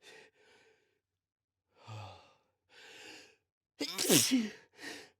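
A person taking several short, quiet breaths and sighs as a sneeze builds, then sneezing loudly about four seconds in, with a short breath straight after. The sneeze is brought on by chhinkni sneezing powder.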